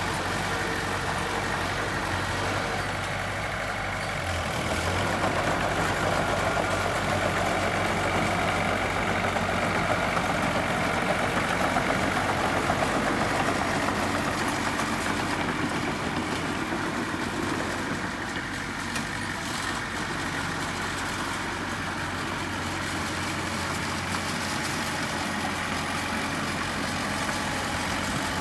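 Engine of heavy earthmoving equipment running steadily. It grows louder for several seconds a few seconds in, as if under load, then eases back.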